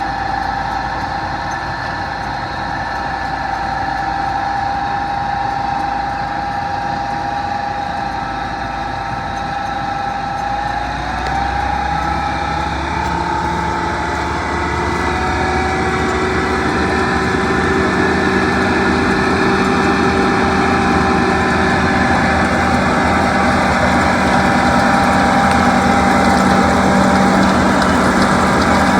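John Deere combine running steadily while harvesting soybeans: an engine drone with whining tones from the machinery, growing slowly louder.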